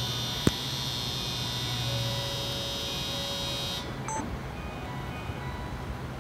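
Electronic platform departure bell ringing steadily at a Shinkansen station, then cutting off suddenly a little under four seconds in, over a low steady hum. There is a sharp click just before the first second, and a short beep just after the ringing stops.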